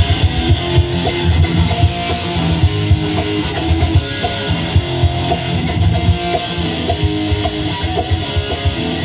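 Rock band music: strummed electric and acoustic guitars over a strong low end, with a steady percussive beat.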